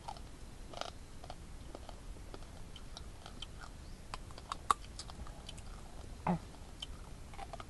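Someone chewing crunchy cooked wild bird meat: small crunches and clicks of the bite, with one sharper crack a little before five seconds.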